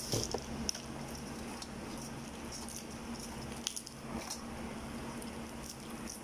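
Cooked crab shell being cracked and picked apart by hand: scattered small cracks and clicks, over a steady low hum.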